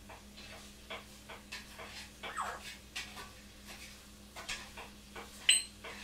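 An African grey parrot in its wire cage making light, irregular clicks and taps, with a short falling note about two seconds in. Near the end comes a sharp click with a brief high ring, the loudest sound.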